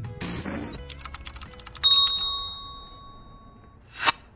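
Subscribe-outro sound effects: a short hiss, a quick run of clicks like typing, then a bright bell ding about two seconds in that rings out and fades, and a brief whoosh near the end.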